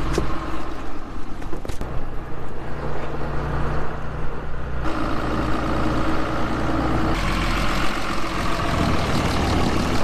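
Ram 3500 pickup truck's engine running steadily, with a rush of wind and snow noise over it. The sound changes abruptly twice, about halfway through and again a couple of seconds later.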